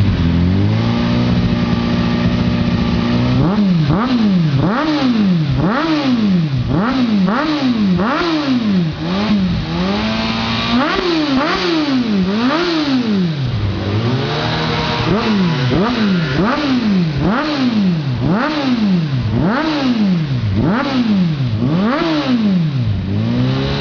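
Roncar Coyote two-way motorcycle alarm siren sounding. It holds a steady tone for the first few seconds, then wails up and down about twice a second, switching back and forth between the steady and the wailing pattern several times.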